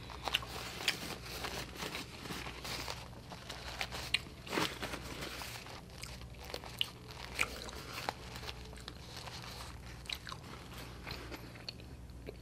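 Mouth sounds of a person chewing food: irregular small clicks and crunches.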